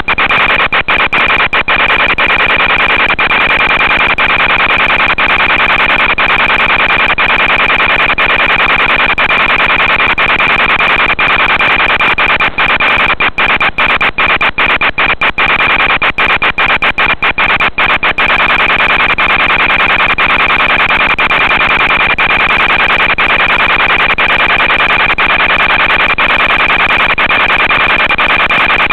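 Audio channel of an analog FPV video downlink: a steady hiss with a constant high whine, broken by many brief dropouts as the signal cuts in and out.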